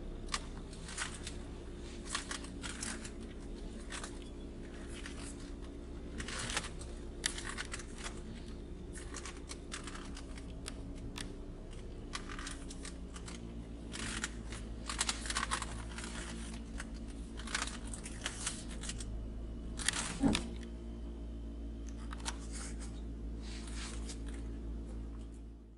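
Quiet car cabin sound of a vehicle in reverse: a steady low hum with scattered faint clicks and rustles, and one sharper click about three-quarters of the way through.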